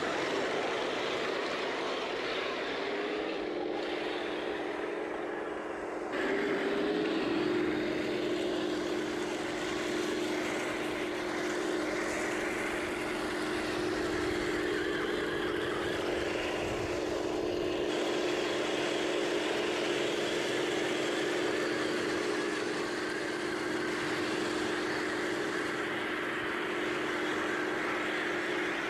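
Heng Long 1/16 Challenger 2 RC tank driving: its built-in sound unit plays a steady simulated tank engine note over the noise of its geared electric drive and metal tracks. The engine note rises a little about six seconds in, then holds steady.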